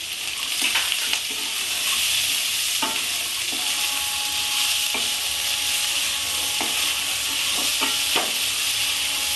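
Potatoes and green peas sizzling as they fry in oil in a non-stick kadai, stirred with a wooden spatula that scrapes and knocks against the pan every second or two.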